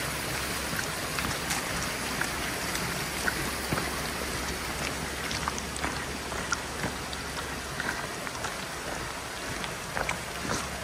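Light rain falling: a steady hiss with scattered ticks of drops.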